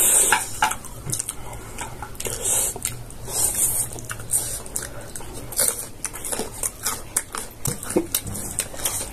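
Close-up eating sounds: chewing with many small wet mouth clicks and a few brief slurps.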